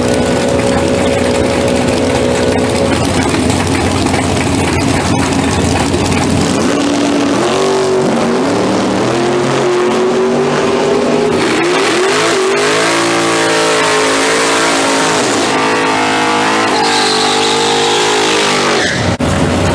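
First-generation Chevrolet Camaro drag car doing a burnout: the engine idles, then from about seven seconds in revs up and is held high, its pitch rising and wavering, as the rear tyres spin and smoke. A high tyre squeal near the end, then the sound cuts off suddenly.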